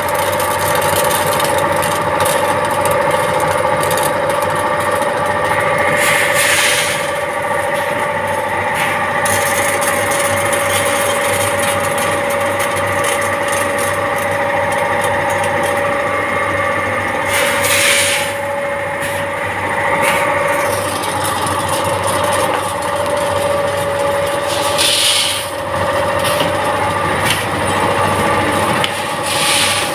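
A four-head linear weigher and vertical form-fill-seal pouch packing machine running: a steady mechanical hum with several constant tones, and a short burst of hiss four times.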